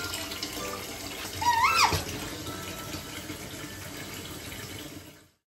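Tap water running steadily into a shallow tub, splashing. About one and a half seconds in, a short high squeaky call rises, dips and rises again over the water. The sound fades out near the end.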